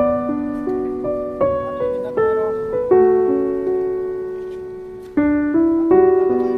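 Background piano music: slow, gentle piano chords and melody notes, each struck and fading, with a long held chord in the middle before playing resumes.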